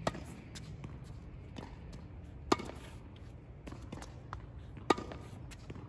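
Tennis ball struck on a racket's strings three times, about two and a half seconds apart: short blocked volleys. Fainter taps come between the hits.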